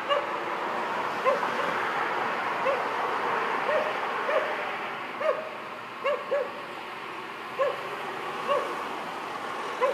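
A dog barking in short, high yaps, about one a second with uneven gaps, over a steady background hiss.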